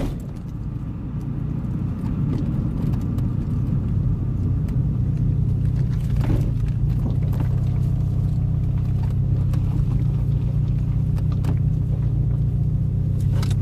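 Cabin sound of a 1993 Toyota MR2 turbo on the move: its mid-mounted 2.0 L 3S-GTE four-cylinder and the tyre and road rumble make a steady low drone. It drops briefly at the start and then holds an even note.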